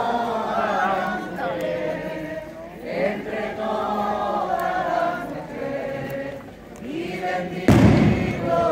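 Procession crowd singing together in unison: a slow, chant-like song with long held notes. Near the end, a brief loud bump close to the microphone.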